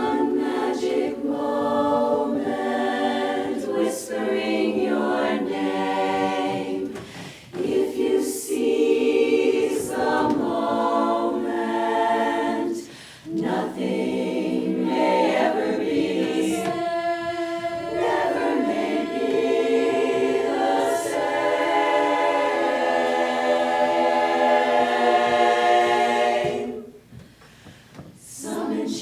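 A cappella chorus singing in close harmony, in phrases with short breaks between them. Near the end it holds a long chord, then stops.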